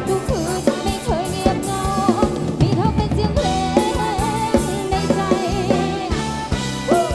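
Live band music: a steady drum-kit beat under held chords, with a wavering, gliding lead melody.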